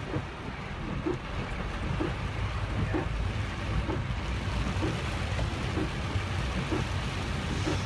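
Heavy rain falling on a moving car, over the car's steady low rumble, with a short mid-pitched sound repeating a little under once a second.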